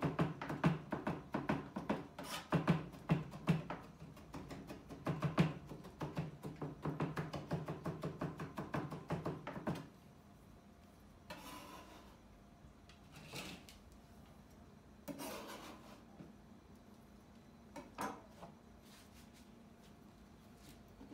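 Kitchen knife chopping on a plastic cutting board: a rapid run of chops for about the first half, then they stop, leaving only a few scattered scrapes and knocks.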